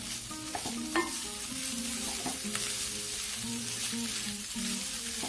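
Flaked boiled fish and fried onion-spice mixture sizzling in a pan over a low flame as a wooden spatula stirs through it, with a few sharp scrapes against the pan. Soft background music plays underneath.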